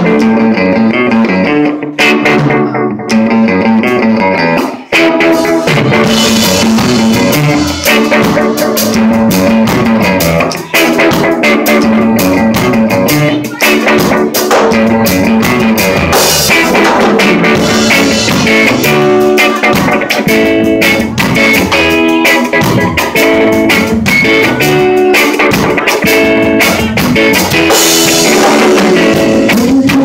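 Live band music: electric guitar playing alone at first, with the drum kit coming in about five seconds in, after which guitar and drums play together.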